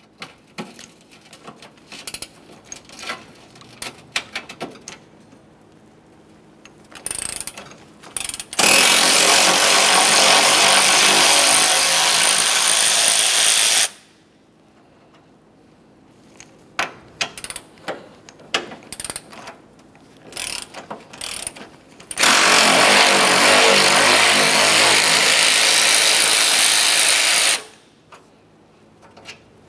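Power ratchet running in two steady bursts of about five seconds each, backing out 10 mm bolts from a car's upper radiator support bracket. Scattered small clicks and metal taps of the tool and socket being handled come between the bursts.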